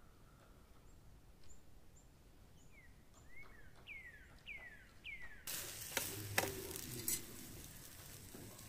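Bird calls as a series of short falling chirps, about two a second. About five and a half seconds in, loud sizzling starts suddenly as an egg omelette fries in a metal frying pan, with a few clinks and scrapes of the metal spatula against the pan.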